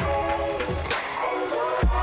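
Background music with a beat and a deep bass line. The bass drops out about a second in and comes back near the end with a falling bass slide.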